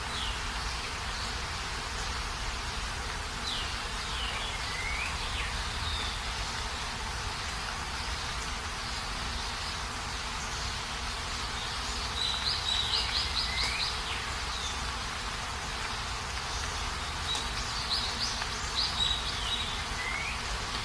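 Heavy rain falling steadily with a low rumble underneath, and a bird calling now and then in short rising chirps, with a quick run of notes about twelve seconds in.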